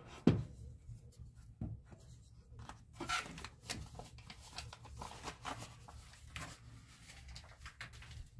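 Foil-paper butter wrapper crinkling and rustling as it is handled and folded, with scattered small clicks and a sharp knock just after the start.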